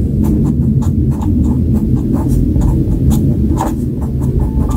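Felt-tip pen writing letters on paper: a run of short, irregular scratching strokes over a steady low rumble.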